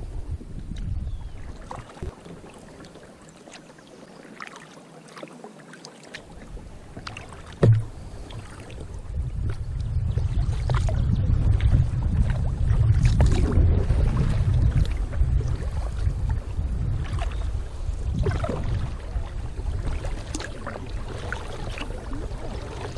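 Kayak paddling: water splashing and dripping from the paddle blades in scattered short strokes, over wind noise on the microphone that swells about nine seconds in. A single sharp knock sounds about eight seconds in.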